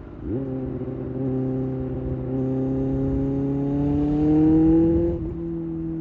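Kawasaki ZX-6R inline-four engine accelerating. The revs rise steadily for about five seconds, then drop suddenly at an upshift and hold steady.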